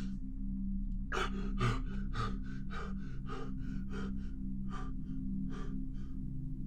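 A person panting in fast, gasping breaths, about two to three a second, over a low steady drone.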